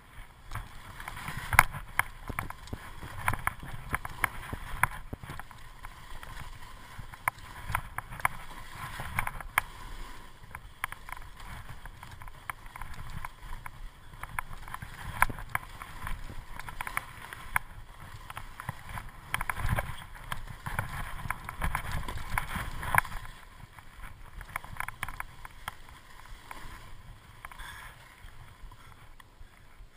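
Skis scraping and hissing over packed snow on a downhill run, with frequent sharp clicks and knocks and swells of low rumble. It quietens somewhat near the end.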